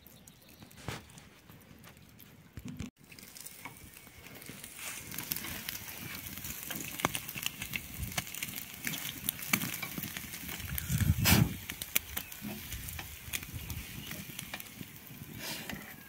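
Skewered marinated chicken and meat sizzling over hot charcoal in a mangal, with fat crackling and popping on the coals; the sizzle starts about three seconds in and builds. A brief louder thump about eleven seconds in.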